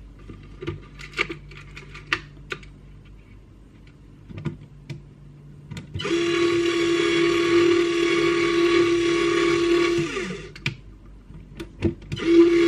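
Small electric RC winch motor, driven through a 1060 ESC. A few light handling clicks, then about six seconds in the motor runs with a steady whine for about four seconds and winds down in pitch as it stops. It starts again near the end.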